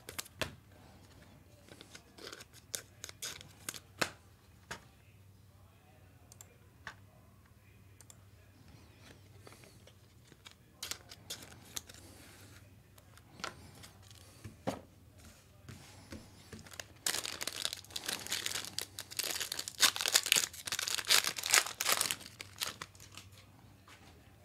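Trading cards and a foil card-pack wrapper being handled: scattered clicks and taps, then about five seconds of crinkling and tearing as the pack wrapper is ripped open.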